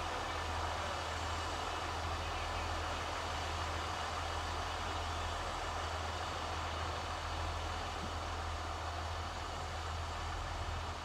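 Steady low hum of a track maintenance vehicle's engine idling, with an even background hiss.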